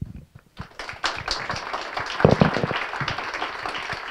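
Audience applauding at the end of a talk: a crowd's clapping that starts about a second in and carries on steadily.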